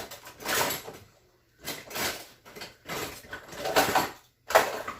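Kitchen handling sounds as marinated chicken wings are moved into a baking dish: about five short scraping, clattering bursts with brief quiet gaps between them.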